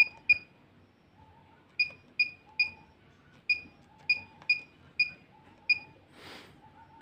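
Handheld e-PoS ration machine's keypad beeping at each key press as an Aadhaar number is typed in: about ten short, high beeps, unevenly spaced.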